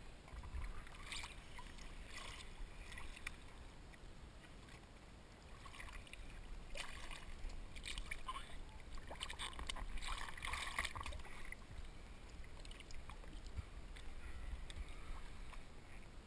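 Sea water lapping and splashing right at a camera held at the waterline, with small irregular splashes that grow busier in the middle and a low rumble of water moving over the microphone.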